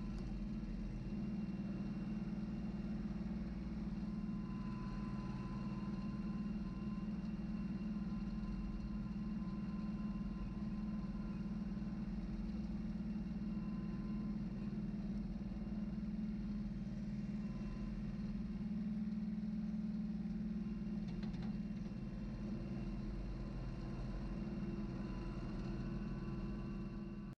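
Farmtrac 26H compact tractor's diesel engine running at a steady speed while the tractor drives, heard from the driver's seat.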